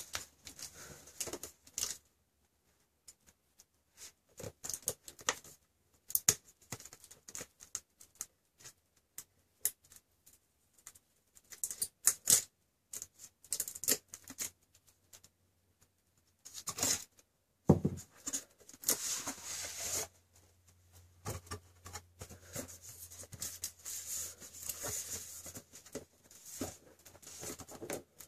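Hands handling a cardboard retail box for a computer mouse: scattered taps, knocks and scrapes with short pauses between them. There are longer stretches of cardboard sliding and rustling about two-thirds of the way through and again near the end, as the inner box comes out of its printed sleeve.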